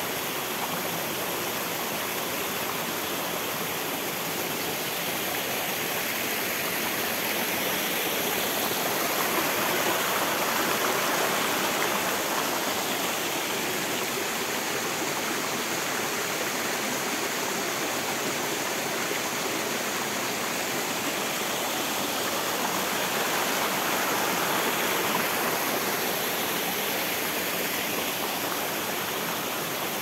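Steady rush of water from a small forest waterfall and stream, growing slightly louder twice.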